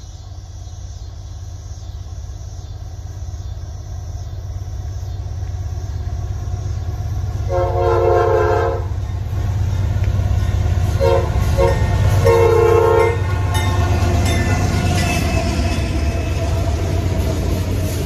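Approaching diesel freight train sounding its multi-chime air horn: a long blast about halfway in, two short toots and another long blast, over the rising rumble of the locomotives. Near the end the locomotives and double-stacked container cars pass close by, wheels clattering on the rails.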